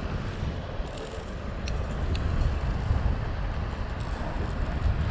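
Steady, low rumbling wind noise on the microphone mixed with the wash of the sea on the rocks.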